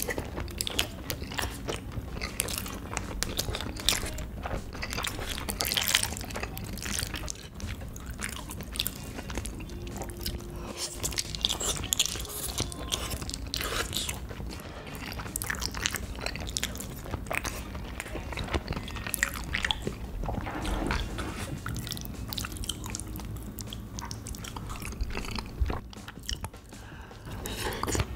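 A person chewing and biting food, with many quick mouth clicks and crunchy snaps throughout.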